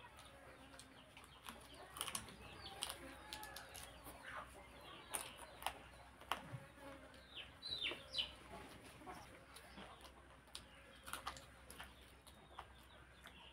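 Eating sounds: chewing and wet lip smacks as chicken meat is pulled off the bone by hand and eaten, heard as a scatter of small clicks. A few short falling chirps come about halfway through.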